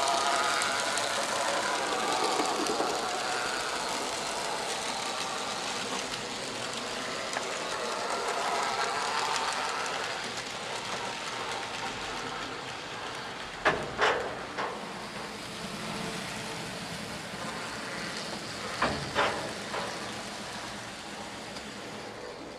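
N gauge model trains running on the track: the steady whir of the locomotive motor and the rattle of wheels on rail, loudest at first and then fading as the train moves away. A few sharp clicks come in two small clusters about five seconds apart.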